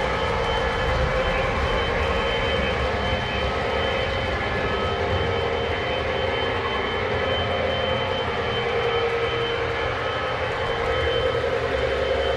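Several Lionel O gauge model trains running at once: a steady drone of their electric motors and wheels rolling on three-rail track, with a thin steady whine over it.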